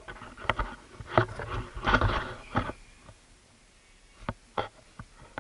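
Irregular clicks, knocks and short scrapes close to the microphone: a cluster in the first three seconds and two more single clicks near the end.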